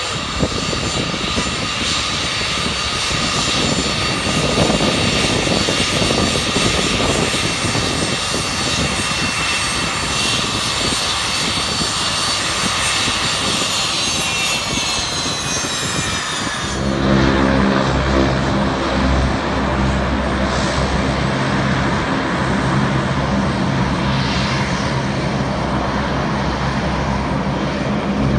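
BAe 146 airtanker's four turbofan engines running with a loud high-pitched jet whine that drops in pitch around two-thirds of the way through. The sound then changes abruptly to the steady, lower drone of a C-130 Hercules airtanker's four turboprop engines and propellers.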